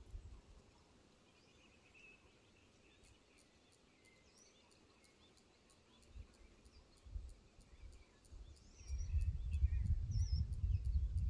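Countryside ambience: faint scattered bird chirps and a steady high ticking about three times a second. About nine seconds in, an irregular low rumble sets in and becomes the loudest sound.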